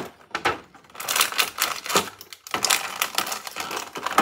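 Clear plastic toy packaging crinkling and crackling as it is handled and worked open, starting about a second in as a dense run of sharp crackles.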